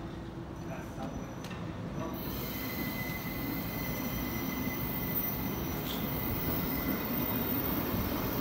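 ÖBB REX regional train's passenger coaches rolling slowly past with a low rumble; about two seconds in, a steady high-pitched squeal from the running gear starts and holds as the train grows gradually louder.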